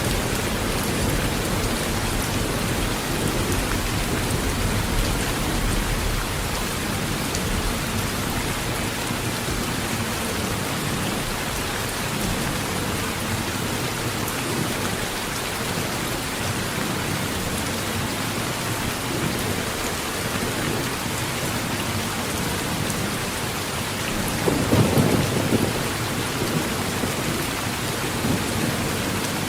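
Heavy rain falling steadily on a tin roof, with thunder rumbling low under it; a louder roll of thunder comes near the end.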